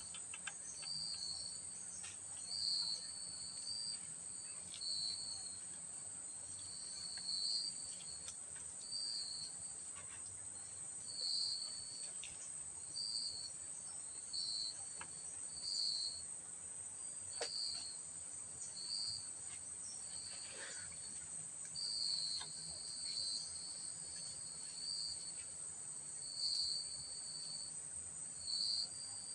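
Insects shrilling in a steady high drone, with short chirps repeating about every second and a half and a few faint clicks.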